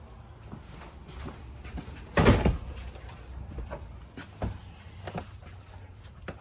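RV closet door being opened, a loud slide and bump about two seconds in, with lighter clicks and knocks of handling around it.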